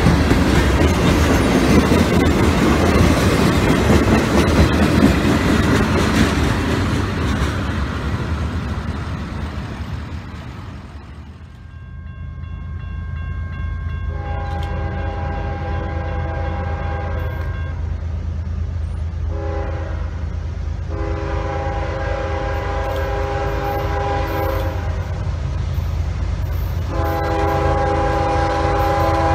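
Freight cars rolling past with a heavy rumble that fades out, then an approaching CSX freight locomotive's horn sounding a series of blasts: a long one, a short one, then two more long ones, each a chord of several notes, over a low engine hum and growing louder as it nears.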